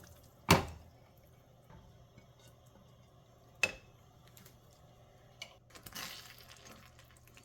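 Cookware clattering as curry is moved from the cooking pan into a Corningware dish: a sharp clunk about half a second in, a second one about three seconds later, then a few light clinks and a brief scrape.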